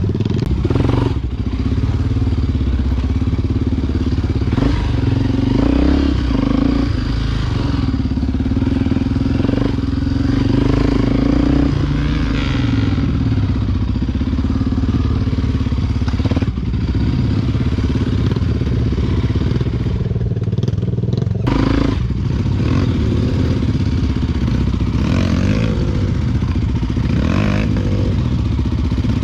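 Single-cylinder four-stroke engine of a Honda XR Tornado 293 enduro motorcycle running steadily, its pitch shifting a little now and then, with some clatter.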